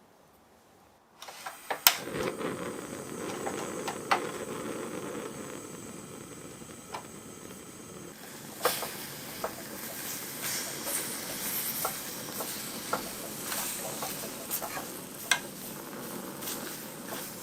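Blueberry filling cooking in a pot on the stove, sizzling and bubbling, with scattered sharp clicks. It starts about a second in and turns brighter and more crackly about halfway through.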